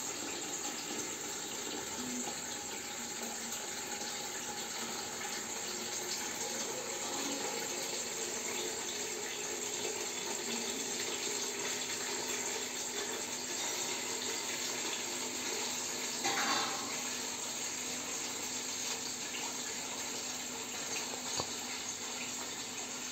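Water from a pump hose pouring steadily into a small plastic tank as it fills, with a faint steady hum underneath.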